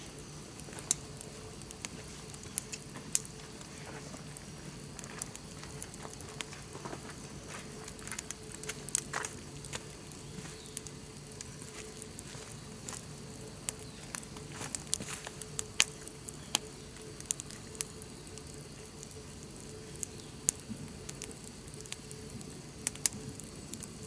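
Wood campfire crackling, with sharp, irregular pops and snaps over a faint steady hum.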